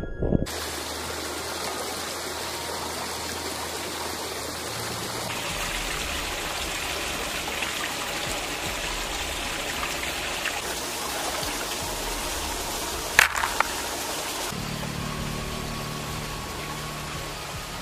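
Steady rush of flowing river water, broken by a brief sharp knock about thirteen seconds in and a smaller one just after.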